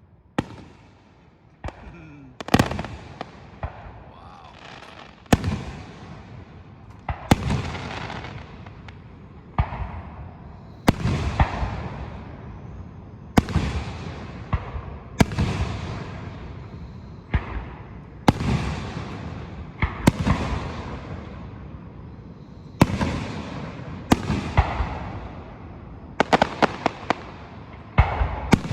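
Aerial firework shells bursting one after another, a sharp bang every second or two, each trailing off in a fading crackle and rumble, with a quick run of several pops near the end.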